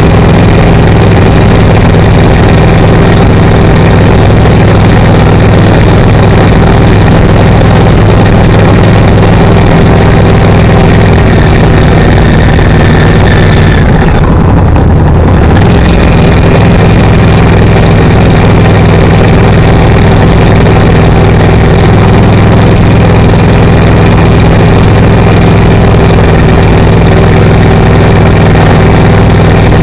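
Loud, steady engine hum and road noise of a car being driven. About halfway through, the higher hiss dips away for a second or two.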